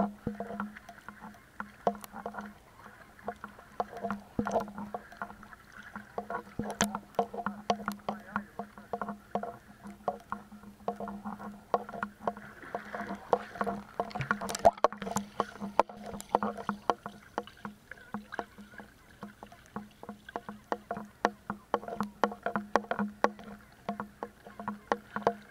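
A boat's motor running at a steady hum, with frequent irregular sharp knocks and slaps over it.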